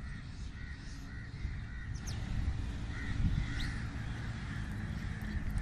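Crows cawing repeatedly, with a couple of brief high chirps from smaller birds, over a steady low rumble.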